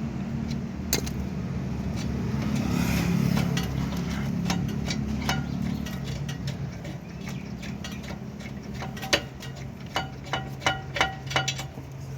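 Metal hand tools working on a car's brake caliper bolts: a series of sharp metallic clicks and clinks, bunched in the last few seconds, over a steady low hum.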